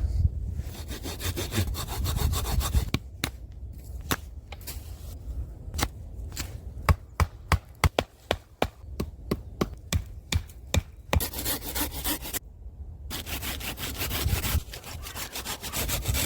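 Wood being worked by hand: rasping sawing strokes at the start and again near the end, with a run of sharp knocks and clicks in between.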